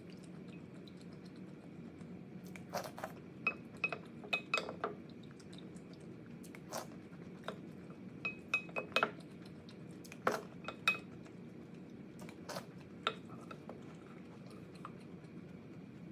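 A spoon clinking and scraping against a small glass dish, in irregular clusters of sharp clicks with a brief glassy ring, as the last of the sauce is scooped out.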